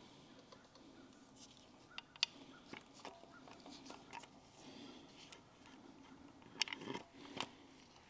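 Faint handling noises: a few light clicks and taps as gloved hands fit the rear cover plate onto an LS V8 engine block, about two seconds in and again near seven seconds, over a low steady hum.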